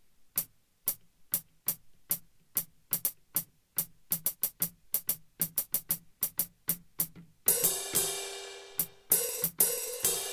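Alesis SR-16 drum machine playing its hi-hat sample, number 115: a run of short ticks, slow at first and then faster. About seven and a half seconds in, a ringing cymbal sample starts, with two more cymbal hits near the end.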